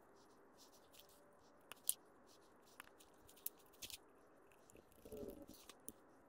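Faint handling sounds of reassembling an electric drill's switch and wiring: light clicks and taps of a screwdriver, pliers and small plastic and metal parts. One sharper click comes about two seconds in, and a brief rustle about five seconds in.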